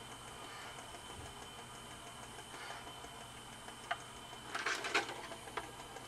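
Department 56 animated ski slope's small 4.5-volt DC motor driving its pulley and fabric belt, running unloaded with no skiers on the belt: a faint steady whine. Near the end, a few knocks and a rattle as the unit is handled.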